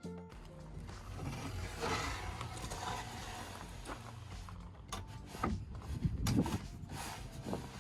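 Scraping and rustling of wooden framing lumber being handled, then a run of sharp knocks about five seconds in as a piece is fitted into place.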